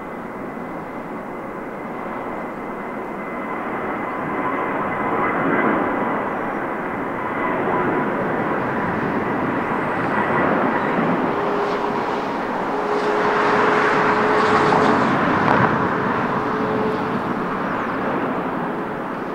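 Airbus A321-231 with IAE V2500 turbofan engines taking off. The jet noise builds steadily to a peak over the middle of the clip, with a steady low tone in its loudest part, and eases off near the end.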